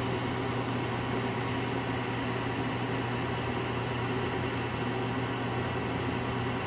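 Evcon Coleman gas furnace's draft inducer fan motor running with a steady hum. No burner lights after the gas valve clicks open; the owner suspects a failed gas valve.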